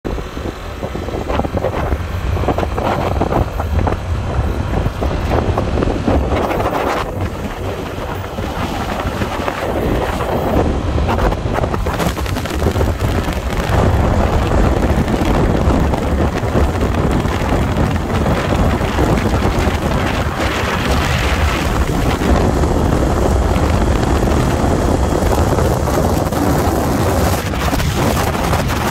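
Wind buffeting the microphone of a moving scooter at road speed, a continuous rushing roar with heavy low rumble, with engine and tyre noise underneath.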